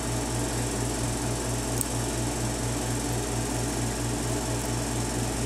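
Steady low machine hum with a pulsing drone, about four or five pulses a second, and a faint tick about two seconds in.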